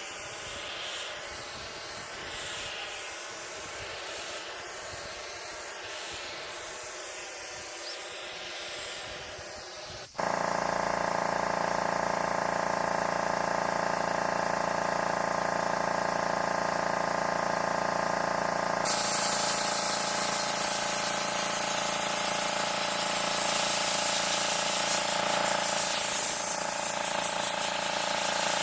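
Water being sprayed hard while cleaning air-conditioner parts, with the steady hum of a pump motor. The hiss starts fairly soft; the motor hum comes in about a third of the way through, and the spray grows louder and brighter about two-thirds of the way through.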